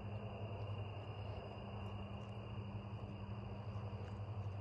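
Night insects, crickets, trilling steadily, over a low steady hum.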